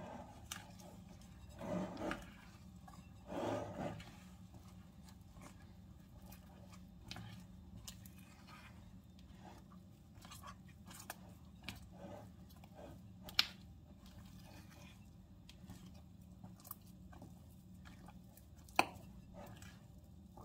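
Kitchen food-preparation handling sounds: two short rustles about two and three and a half seconds in, then scattered light clicks and taps, two of them sharper, over a low steady hum.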